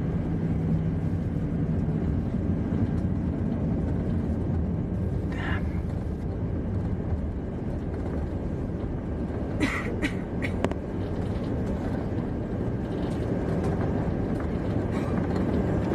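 Steady low rumble of a running vehicle, with a low hum that fades out about two seconds in and a few faint clicks near the middle.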